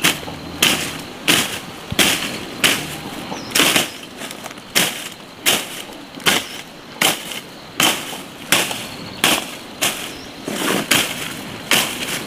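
A hand tool chopping into soil and undergrowth in a steady rhythm, one sharp stroke about every three quarters of a second.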